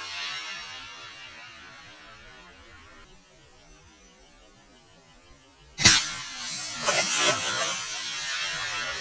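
A single shot from a Diamondback AR-15-style rifle in 5.56 about six seconds in, a sharp crack followed by about two seconds of rolling echo.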